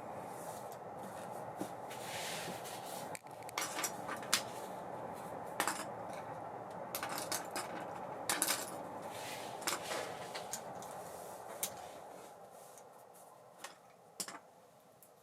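Spool of an Abu Garcia Ambassadeur 5500C baitcasting reel whirring as it spins freely, slowing and fading over the last few seconds. Light metallic clicks and clinks sound throughout.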